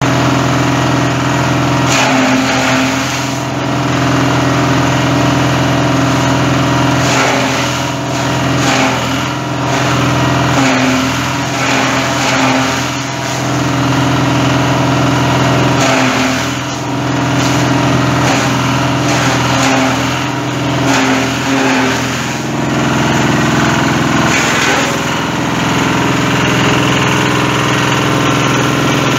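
Engine-driven corn stalk chopper running steadily, the small engine's even hum with irregular crackles every second or two.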